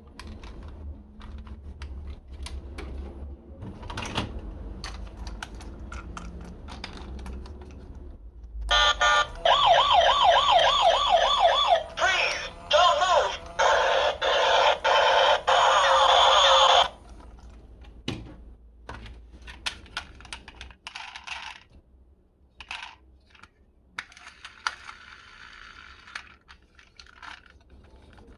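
Toy ambulance's electronic siren sounding loudly for about eight seconds, a fast rising-and-falling wail that cuts in and out several times in its second half. Before and after it, small plastic clicks and rattles.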